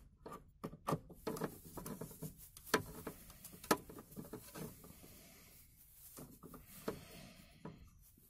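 A screwdriver with a socket bit turns out a screw inside a plastic dashboard recess, giving a run of irregular clicks and taps of metal on screw and plastic. They are thickest in the first half and thin out to a few scattered taps later.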